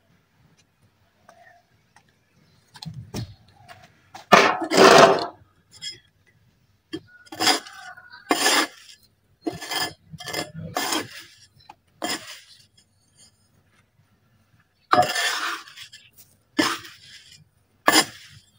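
Wet red dirt being worked in a container: a series of short gritty scrapes and clinks, the longest and loudest about four seconds in.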